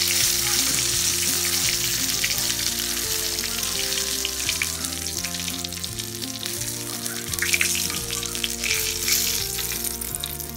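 Breaded chicken pieces deep-frying in hot oil: a steady sizzle and crackle, with a few louder crackles in the second half. Soft background music with changing notes plays underneath.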